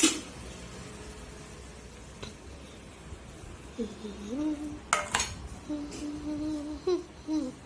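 Dishes and serving pots clattering as cooked food is gathered to be served, with a few sharp clacks of utensils on crockery. A faint wavering hum runs through the second half.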